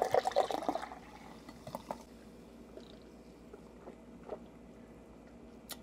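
Surge citrus soda poured from an aluminium can into a drinking glass for about the first second, then quiet apart from a few faint clicks.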